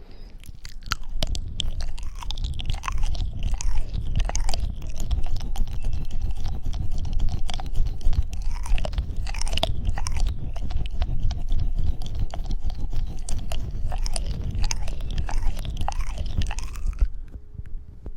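Close-miked ASMR crackling and scrunching, dense and continuous with many small clicks over a low rumble, stopping about a second before the end.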